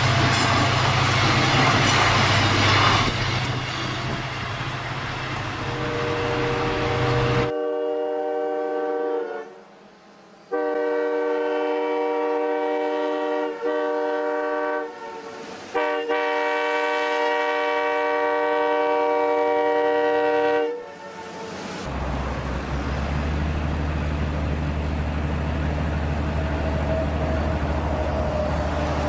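Train running with a loud rumble and low hum that cuts off suddenly about seven seconds in. A train horn sounds a chord in three long blasts, each a few seconds long, the last about five seconds. Then a steady low engine drone follows.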